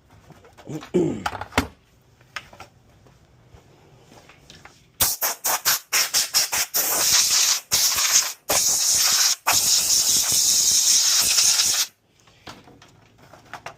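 Compressed air blowing dust out of a PS5's clogged power supply: a run of quick short bursts, then three long loud blasts of hissing air that stop sharply. A brief squeaky scrape and two knocks about a second in.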